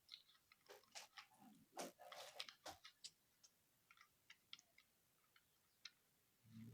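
Faint clicking and clacking of a plastic Rubik's Cube being twisted by hand: a quick flurry of clicks about two seconds in, then scattered single clicks, with a soft thud near the end.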